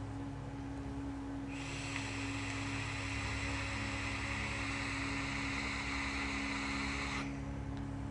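A long drag of about six seconds on an Altus coilless vape tank fired from a box mod in temperature-control mode: a steady airy hiss of air and vapour drawn through the atomizer, starting about a second and a half in and cutting off sharply near the end. A steady low hum runs underneath.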